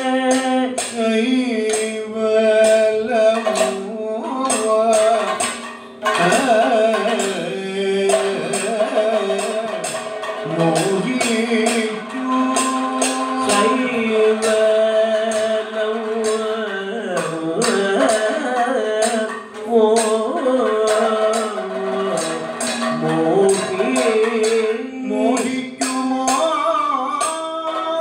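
Kathakali vocal music: a male singer holding long notes that glide between pitches, accompanied by a barrel drum and frequent sharp percussion strokes.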